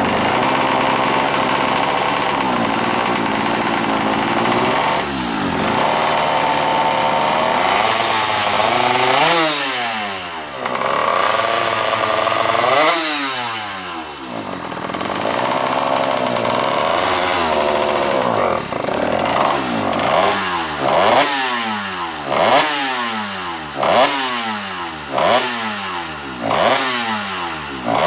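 Yamaha F1ZR two-stroke drag-bike engine, bored to 128 cc and running a Honda Grand CDI, being revved. It is held at high revs for several seconds, drops and climbs back twice, then is blipped in quick, regular bursts about once every second and a half near the end.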